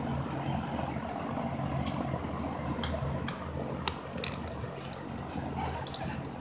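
Wrenches clicking and clinking against a brass AC line union fitting as it is gripped and turned by hand, a handful of sharp metal clicks in the second half, over a steady low hum.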